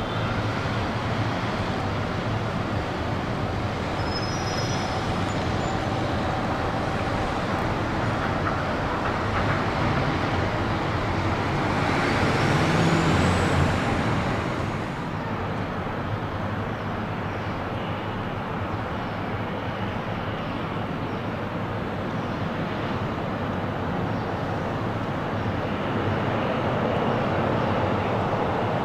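Jet engines of airliners taxiing, a steady rush of engine noise. About twelve seconds in it swells louder with a whine rising in pitch, then eases back.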